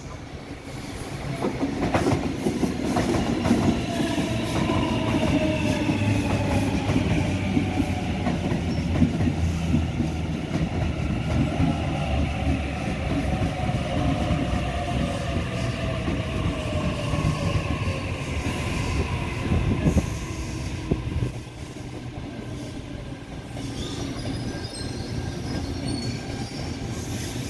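Sydney Trains double-deck electric train passing close by: a loud rumble with wheel clatter over the rail joints and a slowly falling whine from its electric motors. The sound eases about 21 seconds in, leaving a steadier, more distant train running.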